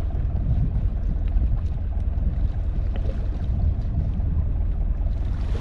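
Steady low rumble aboard a small wooden fishing boat at sea, with wind on the microphone.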